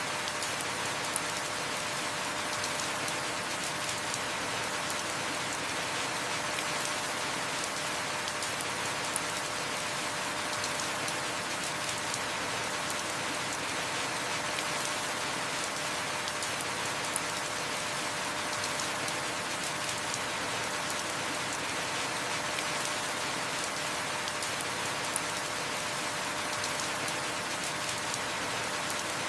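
Heavy rain falling steadily, a dense even hiss of drops with no let-up. A faint sharp tick sounds about every eight seconds.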